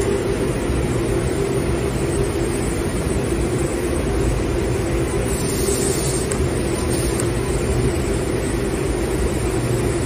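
Steady mechanical drone of an industrial laser cutting machine working sheet metal, with a brief hiss about five seconds in.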